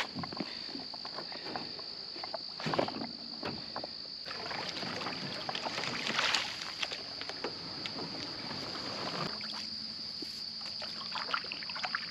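Paddling a small boat through a bayou: uneven paddle strokes and water swishing, over a steady high-pitched insect drone.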